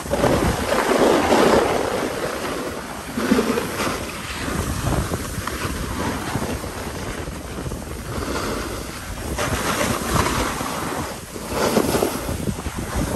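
Wind rushing over the microphone on a fast downhill snowboard run, mixed with the hiss and scrape of board edges carving packed snow. The noise swells and eases several times as the turns are made.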